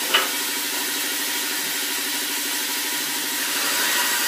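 Homemade bandsaw running steadily, with one sharp knock just after the start. Near the end the noise grows louder as a board is fed into the blade and the cut begins.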